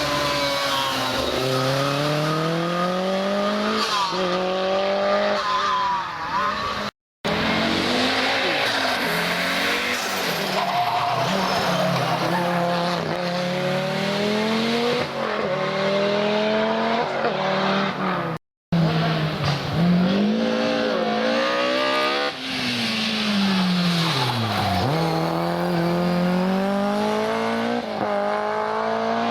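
Historic rally cars at full stage speed, their engines revving up and dropping back over and over through gear changes. Two abrupt breaks split this into three separate car passages.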